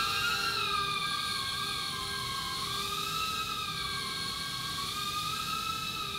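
KingKong Tiny 7 tiny whoop quadcopter's brushed motors and triple-blade propellers whining in flight. The whine wavers slowly up and down in pitch with the throttle.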